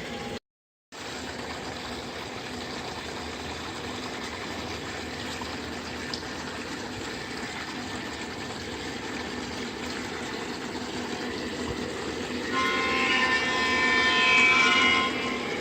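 Lionel O scale model train running on the track with a steady motor hum and wheel noise. Near the end its horn sounds for about two and a half seconds.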